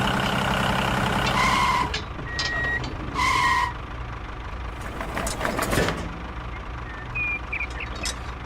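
A construction vehicle's engine runs steadily, then drops away about two seconds in. A reversing alarm beeps twice, about two seconds apart, followed by lighter clattering and a few short high chirps.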